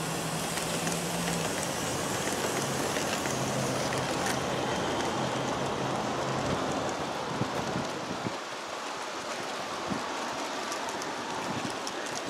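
G-scale model train rolling by on outdoor track: a steady rushing of wheels on the rails. A low hum from the passing diesel locomotive models' motors is heard for the first several seconds and fades out about 7 seconds in.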